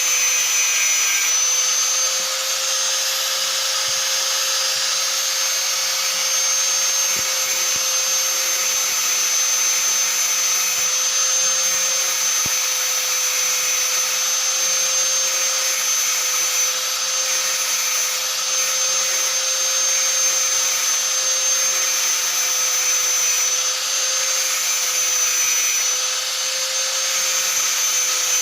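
Electric hand angle grinder running steadily at full speed, a constant high motor whine with a hiss over it, as it grinds down a rusty steel nail into a flat plate.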